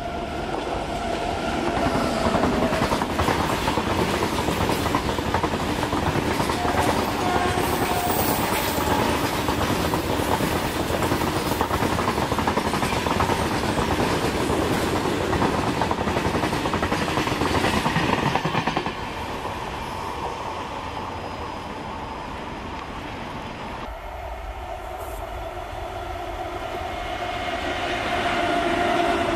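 Electric-hauled freight train passing at speed: a WAG-9 AC electric locomotive and a long rake of covered boxcars, steel wheels clattering over the rail joints in a dense steady rush that eases about two-thirds of the way in. Near the end a second freight passes close by, growing louder: a WAG-7 electric locomotive with open coal wagons.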